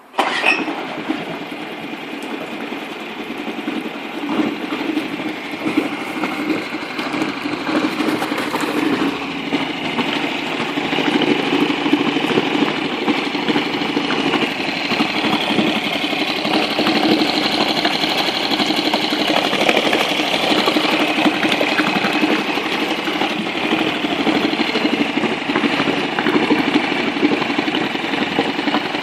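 Honda 2HP four-stroke single-cylinder outboard motor starting abruptly, then running steadily at idle with a busy, rattly mechanical note.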